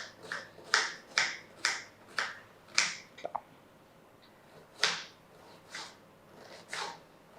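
Knife chopping an onion into small pieces: quick sharp chops about two a second for a few seconds, then a few slower chops about a second apart.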